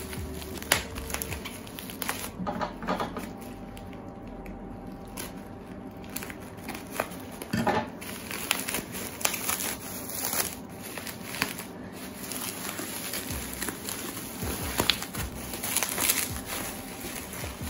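Packaging and CD albums being handled: irregular crinkling and rustling, with scattered knocks and taps as the albums are moved about.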